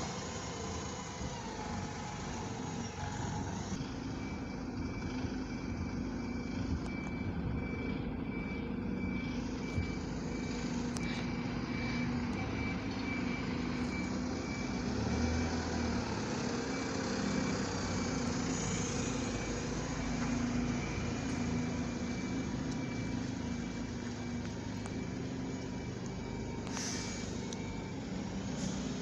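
Diesel single-deck buses running at low revs as they turn and manoeuvre, with a steady high reversing beep sounding through most of it.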